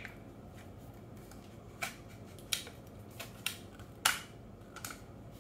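About half a dozen scattered light clicks and taps of small screwdrivers and airsoft rifle parts being handled on a desk, the loudest about four seconds in.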